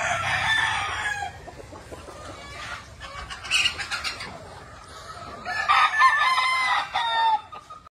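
Gamefowl roosters crowing: one crow right at the start, a shorter one around the middle, and a longer crow of about two seconds near the end.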